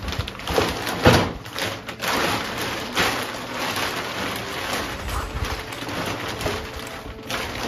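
Large plastic bag crinkling and rustling as hands rummage in it and pull it open, with a knock about a second in.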